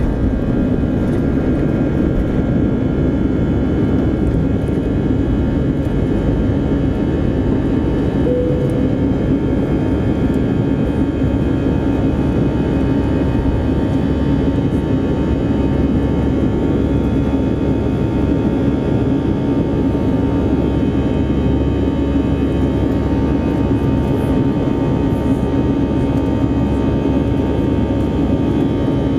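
Airbus A320 engines at takeoff thrust heard from inside the cabin: a steady, loud roar with a constant high-pitched whine over it, through the liftoff and initial climb.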